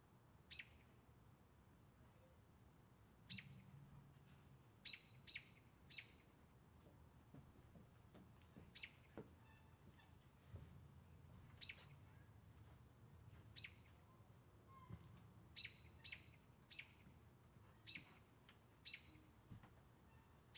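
A bird gives single short, sharp chip calls, one every second or two, about a dozen in all, each a quick downward sweep. A faint low background hum runs underneath.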